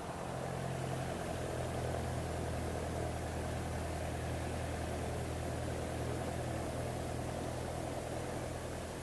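An engine running steadily at idle: a low, even hum with a hiss above it.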